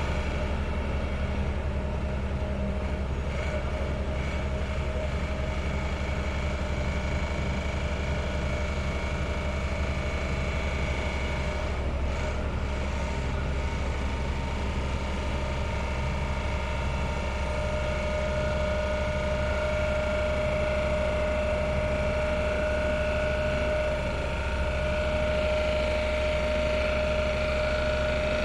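Sheet pile driving machinery running steadily: a continuous low drone with steady whining tones above it, unbroken throughout.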